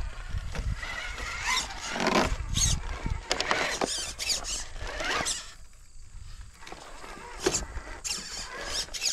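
High electric whine of an RC rock crawler's Hobbywing Fusion SE 1800 brushless motor, rising and falling in short bursts as the throttle is worked, with a quieter pause about six seconds in.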